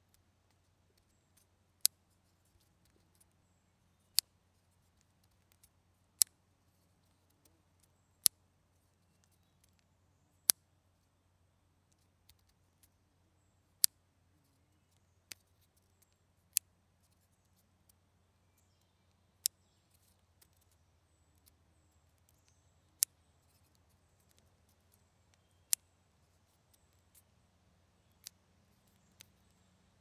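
Spring-loaded clothespins clicking, about a dozen sharp single clicks spaced two to three seconds apart, with a few fainter ones between, over a faint low hum.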